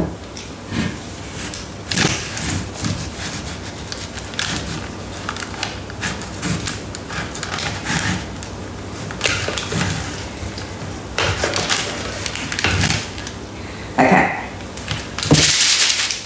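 Plastic spatula scraping and knocking inside a stainless-steel Thermomix mixing bowl as sticky, wet focaccia dough is worked out of it: an irregular run of scrapes and taps, louder near the end.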